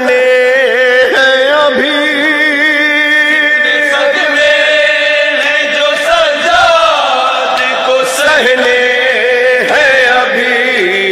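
Male vocals chanting a noha, a Shia lament, in long held notes that waver in pitch.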